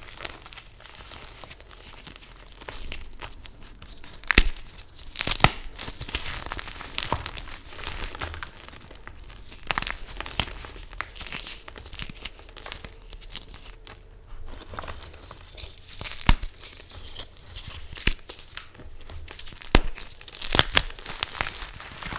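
Dyed Chalklate gym chalk blocks crushed by hand: steady gritty crunching and crumbling, broken by sharp snaps as chunks break, several of them loud.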